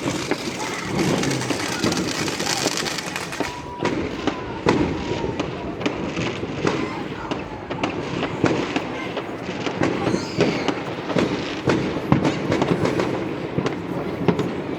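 Fireworks going off in a dense, irregular run of cracks and bangs, with voices in the background.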